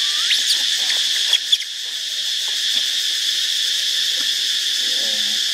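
Steady high-pitched buzzing of a forest insect chorus. A quick rising squeak sounds right at the start, a few sharp clicks come about a second and a half in, and a short low call is heard near the end.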